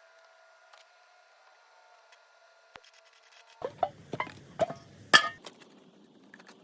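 A quiet stretch with a faint steady hum. About halfway through comes a second or two of scraping and clinking as something is handled, with one louder clink near the end of it.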